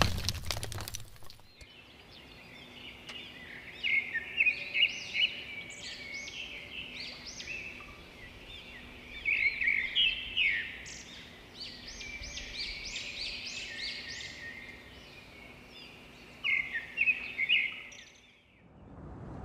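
Songbirds singing in bursts of quick chirps and trills, in several phrases, over a faint steady hum. The tail of a louder sound fades out in the first second, and the birdsong stops about a second before the end.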